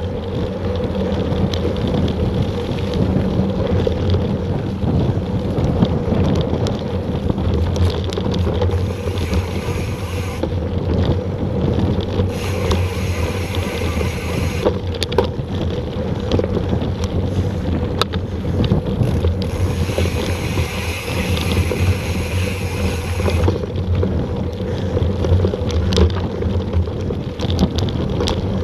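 Mountain bike ridden fast on a dirt singletrack: knobby tyres rumbling over the dirt, the bike's frame and parts rattling and clicking over bumps, and wind buffeting the microphone.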